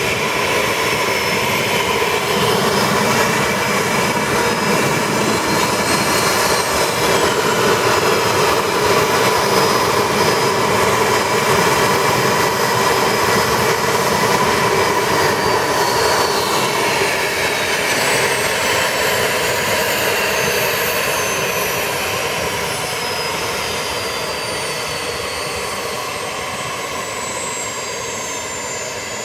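Twin Williams FJ44 turbofan engines of a Cessna Citation CJ1 business jet running at low power on the ground, a steady jet whine and hiss. In the latter part several high whining tones slide down in pitch as the sound slowly eases off.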